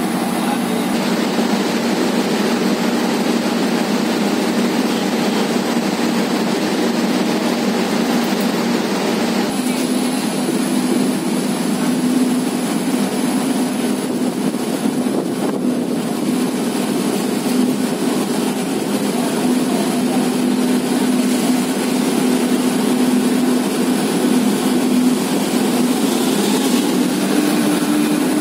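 Diesel locomotive engine idling: a steady drone that holds the same pitch throughout.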